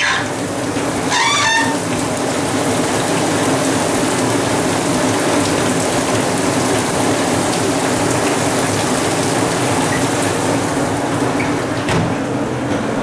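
Steady hiss of rain falling, heard through an open door. There is a short wavering call about a second in and a single knock near the end.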